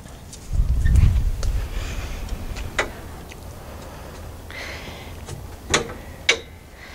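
A wooden door being opened and stepped through: a low rumble starts about half a second in, followed by a few sharp clicks and knocks.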